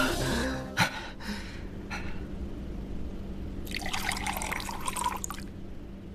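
Liquid sounds: a few single drips, then a run of liquid trickling and splashing for about a second and a half.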